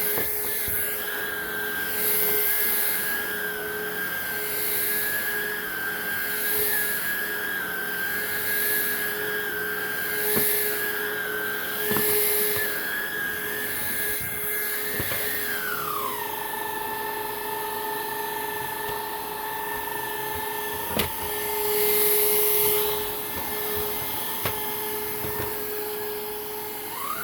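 Hoover React cordless upright vacuum running steadily over the floor. About halfway through, the upper tone of its whine slides down to a lower pitch and holds there, then rises back near the end: its FloorSense switching power, which the owner thinks happens when it meets a different-coloured floor. A few light knocks from the floorhead come through.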